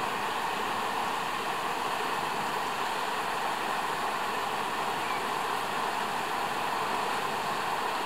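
River water running steadily over rocky shallows, a constant rushing noise.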